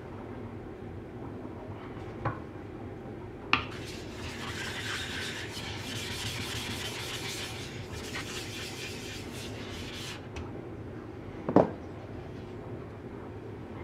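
A flat plate rubbed back and forth across the face of a whetstone for about six seconds, a gritty scraping. Short hard knocks from handling the stones come before it and a louder one about a second after it stops.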